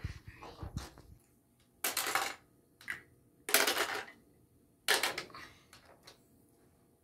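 Small hard plastic toys and figures clattering as they are handled and set down, in three main bursts about a second and a half apart with a few lighter clicks between.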